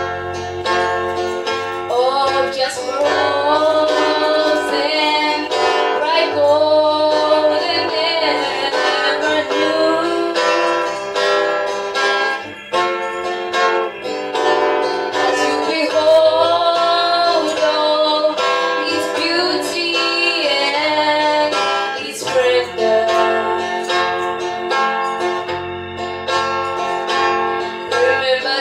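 A gospel song performed live, with a strummed acoustic guitar and a woman and a girl singing together into microphones. The guitar plays alone at first, and the voices come in about two seconds in.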